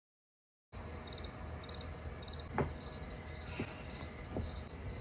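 Crickets chirping in a pulsing trill over a low background rumble, starting abruptly a little under a second in after dead silence, with three soft knocks about a second apart.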